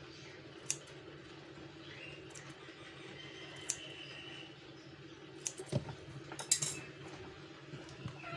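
Pet nail clippers snipping a cat's claws: a few separate sharp clicks, with a quick cluster of them a little past halfway, over a steady low hum.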